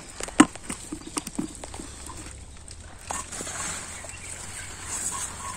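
A few sharp taps and clicks in the first second and a half, then soft wet rustling as hands work through mud and water-hyacinth debris on a fishing net.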